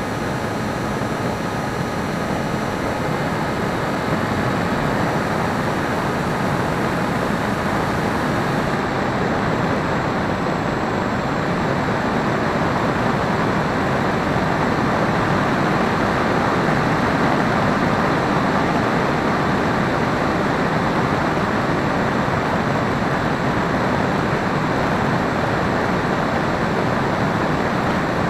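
Hobbyking Breeze electric model plane in flight, heard from its onboard camera: a steady rush of wind over the microphone together with the electric motor and propeller running, with a faint steady whine in it. The hiss turns a little duller about nine seconds in.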